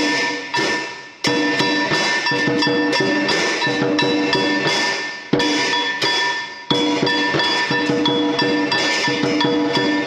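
Percussion music: sharp drum strikes, several a second, over sustained ringing metallic tones.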